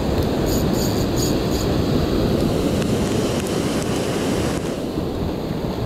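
Surf breaking and washing over rocks in a steady rushing noise, with wind buffeting the microphone.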